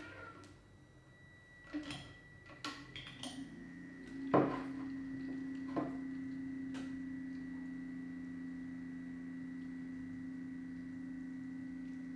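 A few knocks and clicks of handling, the loudest about four seconds in, then the small electric motor of a Subminimal NanoFoamer PRO milk frother hums steadily and evenly.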